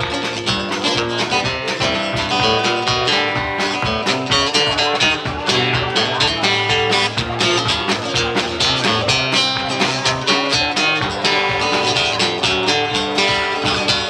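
Live acoustic guitar strummed fast and steadily with a drum kit keeping time: an up-tempo instrumental with no singing.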